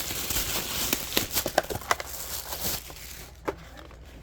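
Paper packing wrap being pulled out of the box, rustling and crinkling with many small crackles and taps, which dies down about three seconds in, leaving a few faint clicks of handling.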